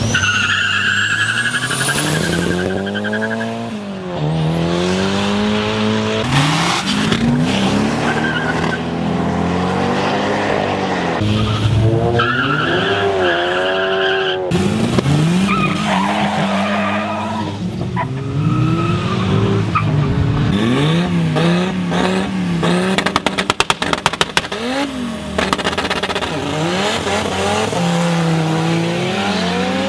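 Several street cars launching and accelerating hard. Engines rev up and drop back through repeated gear changes, tyres squeal at the launches, and a quick rattle of sharp pops comes about two-thirds of the way through.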